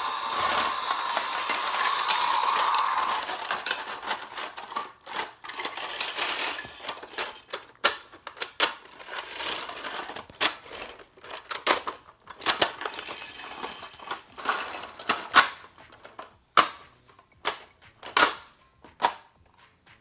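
Plastic toy bulldozer pushed across a wooden floor, a steady rolling noise for the first few seconds, then a long string of sharp plastic clicks and clatters as its parts are worked by hand.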